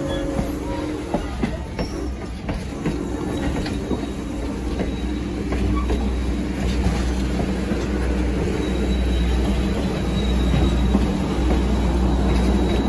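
Strasburg Rail Road passenger cars rolling slowly past: a steady low rumble of the wheels with scattered clicks over the rail joints, getting louder after about five seconds, and a thin wheel squeal in the second half.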